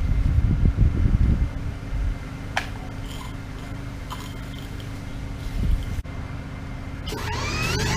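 Steady hum of a Honda EU2000i inverter generator running. About seven seconds in, the Portland electric pressure washer is switched on: its motor starts and spins up with a rising whine as the generator takes the load.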